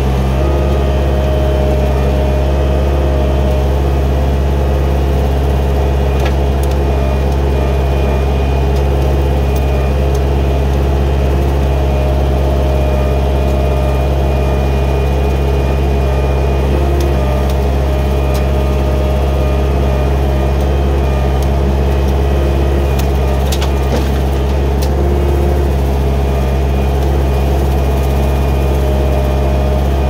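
Gehl 4625SX skid steer's diesel engine running steadily under load, powering a Rut Mfg. 60-inch hydraulic brush cutter. A few sharp cracks of brush and sticks being cut break through here and there.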